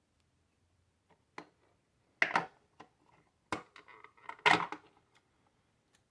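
Hard plastic parts of a Nerf N-Strike Tech Target being handled and pried during disassembly: a handful of sharp clicks and cracking knocks. The loudest come about two and a half seconds in and again around four and a half seconds.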